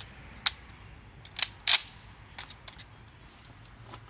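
Several sharp mechanical clicks from handling an M1 Garand rifle, the loudest about one and a half seconds in.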